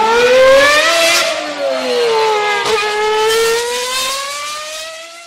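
Car engine revving hard: the pitch climbs for about a second, sinks back, dips sharply just after midway, then climbs steadily again before fading out.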